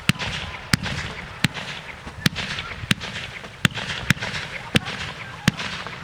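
Fireworks display: sharp shell bursts in quick succession, about nine in six seconds, each followed by a fading hiss.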